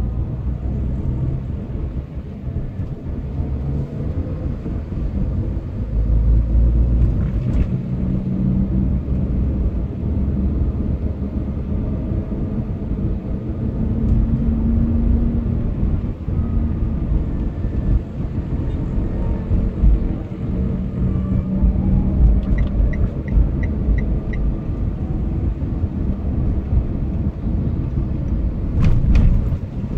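Low road and engine rumble heard inside a car moving slowly through city traffic. A few brief knocks, and a quick run of about six short high beeps a little past the middle.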